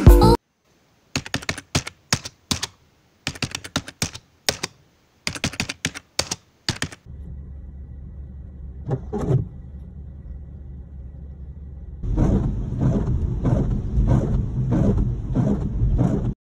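Groups of sharp clicks, then a steady low hum. After about twelve seconds, windshield wipers sweep across the glass in regular strokes, about two a second, over the hum, then stop suddenly.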